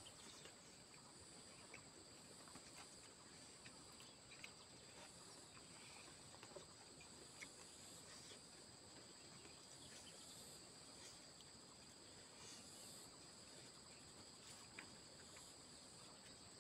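Faint steady chorus of insects, a continuous high-pitched shrill at two pitches. Scattered small clicks and rustles from eating by hand off a banana leaf.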